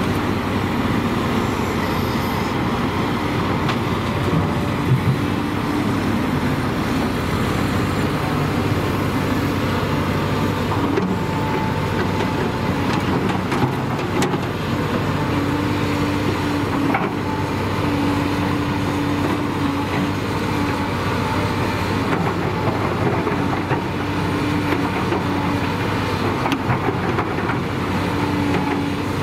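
Volvo EC210B excavator's six-cylinder diesel engine running under load. A hydraulic whine rises and falls as the boom, arm and bucket work, and a few short knocks come from the bucket scraping and dropping dirt.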